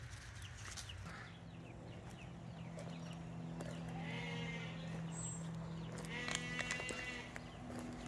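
Faint bleating from farm livestock, two calls about four and six seconds in, over a low steady hum.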